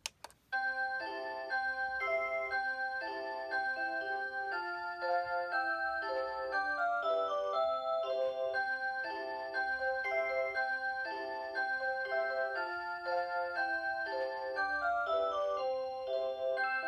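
A sharp click, then from about half a second in the Rhythm Clock Aria Cantabile alarm clock's electronic 'Aurora Sound' melody plays: a multi-voice, chime-like tune of clean, sustained notes.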